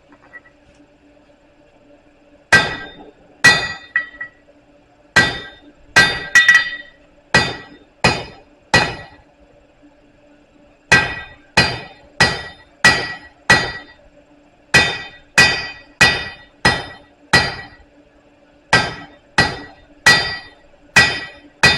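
Hand hammer striking a hot 5/8 steel bar on an anvil, drawing it out. It lands blows in runs of three to six at roughly two a second with short pauses between runs, and each blow has a bright metallic ring.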